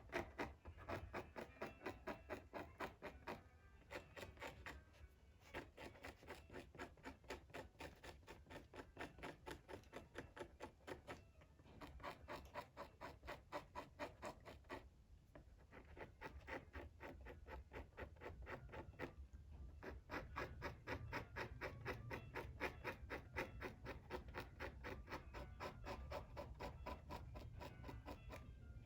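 Parchment of a Torah scroll being scraped by hand, faintly, in quick repeated strokes about three a second, with a few brief pauses.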